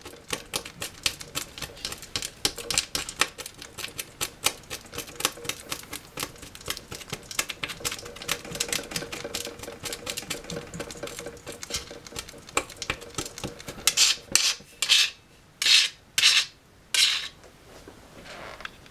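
Razor blade chopping match-head material finely on a hard surface: rapid taps, several a second, then a few longer, louder scraping strokes near the end.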